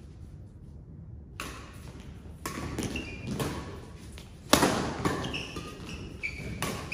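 Badminton rally: a string of sharp racket-on-shuttlecock hits at an irregular pace, starting about a second and a half in, the loudest hit about four and a half seconds in, with short shoe squeaks on the synthetic court mat between them.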